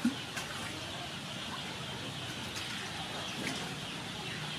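Steady outdoor background hiss with a few faint ticks, and one dull knock just after the start.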